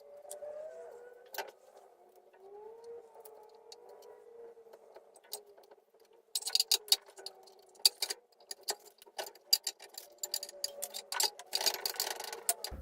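Irregular sharp metallic clicks and clinks of hand tools working on metal, starting about six seconds in and coming thick and fast near the end, over a faint wavering tone.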